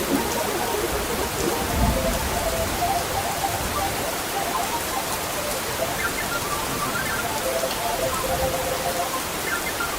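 Steady rain falling, with a brief low rumble about two seconds in and faint soft notes in stepping patterns underneath.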